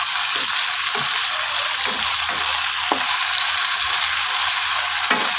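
Pekasam fish frying in oil in a non-stick pan, giving a steady sizzle, while a spatula stirs it now and then. The fish is being fried long enough to break apart into pieces.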